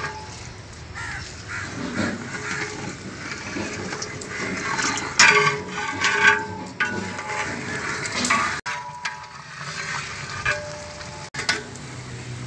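Long flat metal ladle stirring and scraping rice through boiling stock in a large metal degh, in irregular strokes. Crows call in the background.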